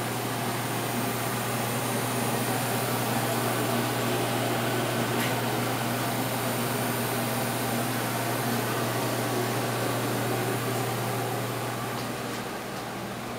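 Steady whir of a ventilation fan over a low, even hum, easing off slightly near the end.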